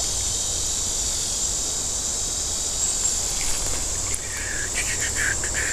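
Steady, dense, high-pitched chorus of summer insects buzzing in the surrounding woods. A few short, higher chirps come through in the second half.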